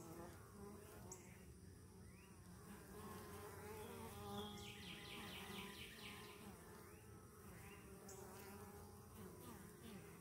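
Faint buzzing of honeybees flying at a hive entrance: a steady hum with wavering pitches. About halfway through comes a short, rapid, high chirping trill.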